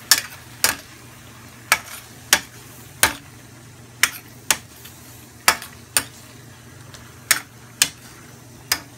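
A spatula knocking and scraping against a stainless steel skillet while stir-frying sliced cucumber, egg and tomato. There are about a dozen sharp clacks, uneven, roughly every half second to a second.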